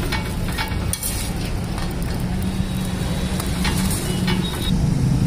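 A steel spatula scraping and tapping on a flat iron tawa as kulchas are pressed and turned, with a few separate scrapes over a steady low hum.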